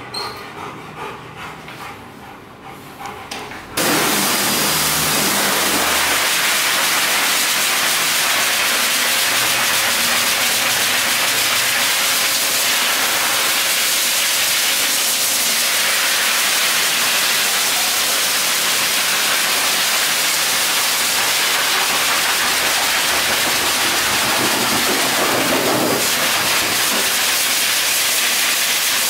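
High-velocity pet grooming dryer switching on about four seconds in, then a steady, loud rush of air through its hose as it blows water out of a wet Rottweiler's coat.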